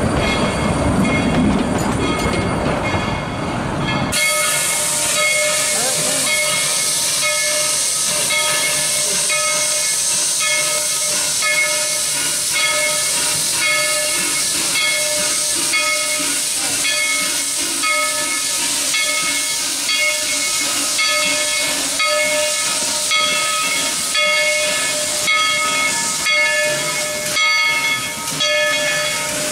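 A wooden passenger coach rolls past on narrow-gauge track with a low rumble. About four seconds in, it gives way abruptly to a steady loud hiss of steam from a standing Baldwin 2-8-2 steam locomotive, with faint steady high tones in the hiss.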